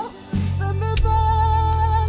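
Background music: after a brief drop at the start, a melody comes back over a deep steady bass, with one long held note through the second half.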